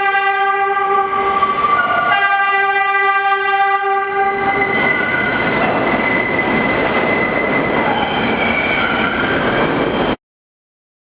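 Train horn sounding two long blasts, the second starting about two seconds in. A train then passes with a loud rushing rumble, until the recording cuts off abruptly near the end.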